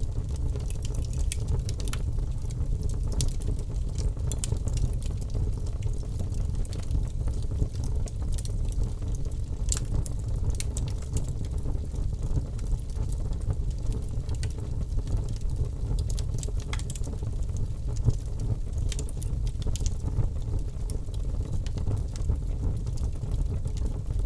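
Wood fire burning in a fireplace: a steady low rush of flames under frequent sharp crackles and pops.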